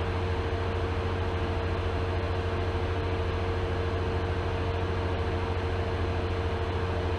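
Steady jet engine drone: a low rumble with a held mid-pitched tone that does not change in pitch or loudness.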